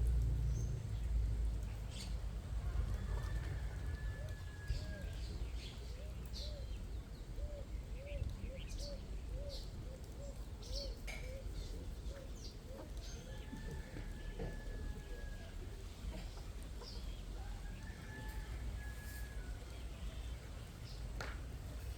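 Birds calling: a run of quick repeated low calls, about two or three a second, mixed with sharp high chirps and a few longer drawn-out calls, over a steady low rumble.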